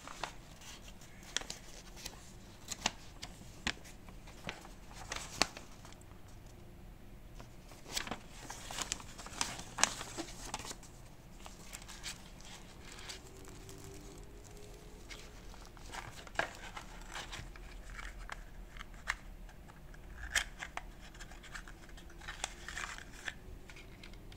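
Hands handling a paper leaflet and a kraft cardboard box with its cardboard insert: scattered crinkles, scrapes and light taps of paper and card, busiest about a third of the way in and again near the end.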